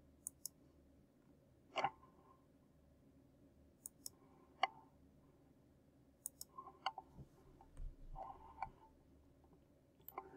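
Computer mouse clicking about a dozen times at irregular intervals, some clicks in quick pairs, as lines are picked and trimmed in a CAD sketch.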